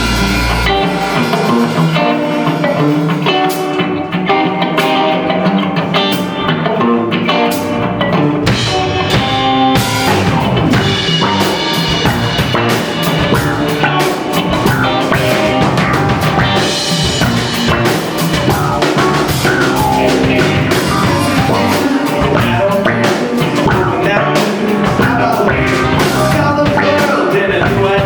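Live rock band playing: drum kit and electric guitars. The bass end is thin for about the first ten seconds, then the full band with a heavy low end kicks back in.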